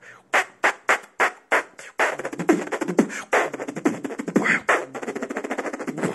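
Beatboxed spit snares: about six single hits at roughly three a second, then from about two seconds in a fast, dense roll of snares. This is the spit snare done with the changed mouth position, meant to sound cleaner and faster.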